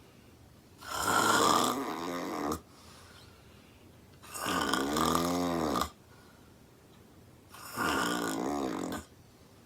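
A woman snoring extremely loud: three long snores, each lasting about a second and a half and wavering in pitch, come roughly every three seconds with quiet gaps between them.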